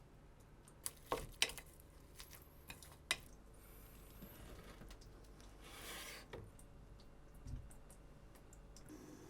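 Faint food-preparation handling sounds: a few sharp clicks and taps in the first three seconds, then a soft rustle about six seconds in.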